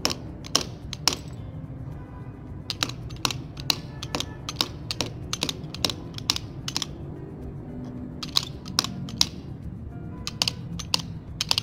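Hammer striking the opened metal casing of a large dry cell on a stone tile floor: sharp metallic taps in short runs of about two to three a second, with brief pauses between runs.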